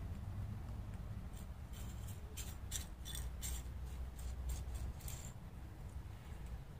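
A cat's paws and claws clicking and scraping on hard patio tiles as it walks: about ten light, scratchy clicks over a few seconds. A low steady rumble runs underneath.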